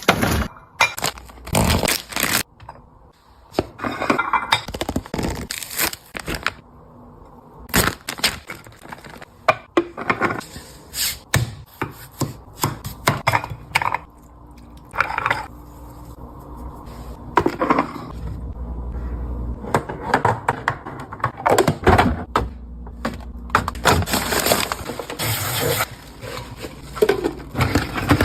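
Irregular knocks, clicks and clatter of containers and food items being handled and set down on refrigerator shelves.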